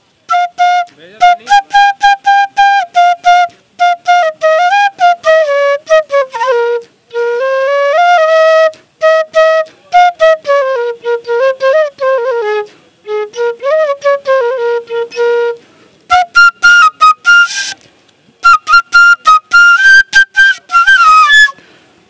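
Bamboo bansuri flute blown by mouth, playing a Bhojpuri song melody in many short, tongued notes with brief breath pauses. About three quarters of the way in, the tune moves up to a higher register.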